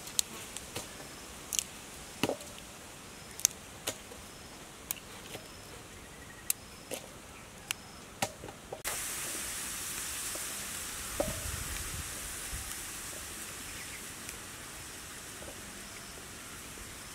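Fresh agati flowers being picked apart by hand, giving crisp snaps and clicks about once a second as the stamens and calyxes are snapped off. About nine seconds in the snapping stops and a steady hiss takes over, with a single thump a couple of seconds later.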